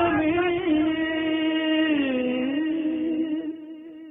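The long held final note of a Hindi song about Kashmir, one sustained sung tone that dips in pitch briefly about two seconds in, then fades over the last second as the music ends.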